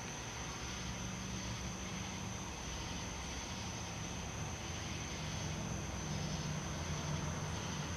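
Steady background noise: hiss with a constant high-pitched tone and a low hum that grows slightly louder in the second half.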